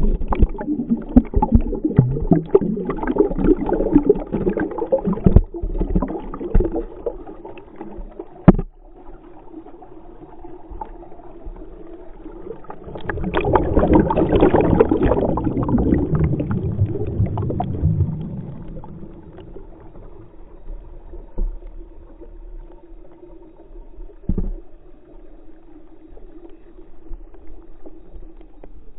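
Mountain brook heard underwater: bubbling and gurgling with many short clicks. It is loud and busy for the first eight seconds or so, drops off suddenly, swells again for about five seconds midway, then settles to a quieter gurgle with a faint steady hum.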